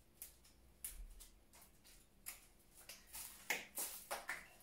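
Scattered light clicks and short rustles of greenery and flower stems being handled and set into a floral arrangement.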